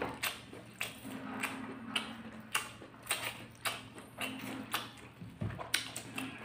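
Close-miked eating: spicy instant noodles slurped and chewed with wet mouth clicks, about two a second.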